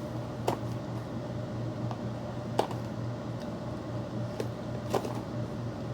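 A slime kit's packaging being handled and pried open: a few sharp clicks and taps, the loudest about two and a half seconds in, over a steady low hum.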